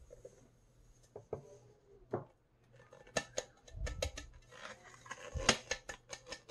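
A steel grinder jar being emptied of fine ground moong dal powder into a steel plate: a run of light metal taps and scrapes against the rim, mostly in the second half, with the soft hiss of the powder sliding out.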